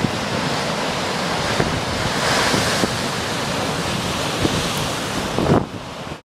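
Storm-driven lake waves breaking on a rocky shore, with strong wind buffeting the microphone. The surf swells about two seconds in, and the sound cuts off abruptly near the end.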